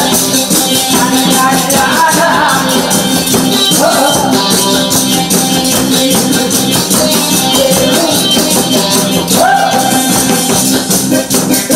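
Yeot-seller's scissors, large iron taffy shears, clacked in a fast, steady rhythm over backing music.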